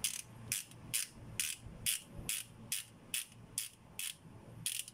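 Ratchet wrench clicking in even, repeated strokes, about two clicks a second, as it turns a transmission drain plug back in.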